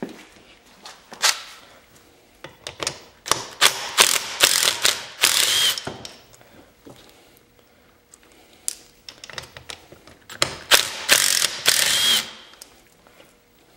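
Cordless drill-driver with a 10 mm socket backing out bolts on a YZ250F crankcase: two runs of a few seconds each, starting about two seconds in and about nine seconds in, full of rapid rattling clicks.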